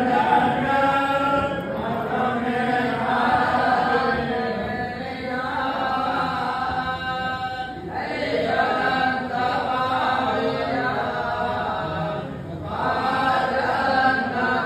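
A group of men chanting a Vaishnava hymn together on a steady pitch, in long phrases with short breaks between them.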